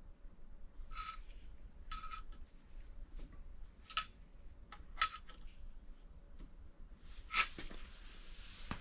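Faint, scattered metallic clicks and clinks, about half a dozen a second or so apart, some with a short ring: hand tools working the crankshaft of a bare BMW N55 engine block while its end play and turning torque are checked.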